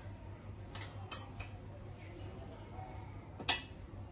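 Sharp metallic clicks and clinks of the motorcycle's top rack and backrest bracket being worked on and fastened: a quick cluster of clicks about a second in and a louder single clink about three and a half seconds in.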